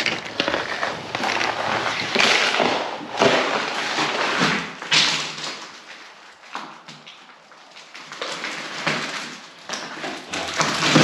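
Footsteps scuffing and crunching over debris on a bare floor, mixed with rustling and scraping, in irregular noisy bursts that ease off for a couple of seconds around the middle.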